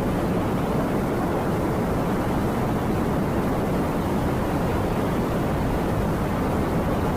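Strong storm wind from a tornado blowing steadily, with a rough low rumble of the wind hitting the microphone.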